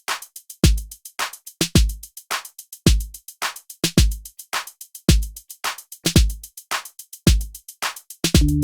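Drum-machine beat on its own: deep kick drum hits with quick hi-hat and snare ticks between them. A synth bass line comes back in just before the end.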